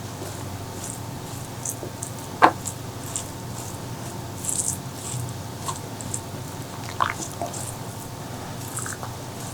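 Close-miked eating sounds: wet chewing and mouth smacks, with two sharp clicks about two and a half and seven seconds in.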